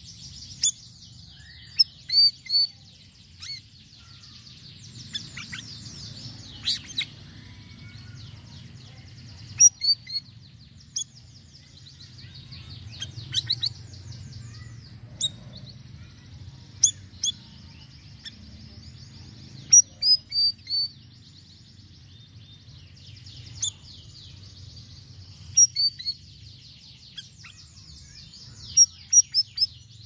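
Siri-siri songbird in full song: loud, sharp chirps and fast trilled phrases that come in clusters every few seconds, over a faint low rumble.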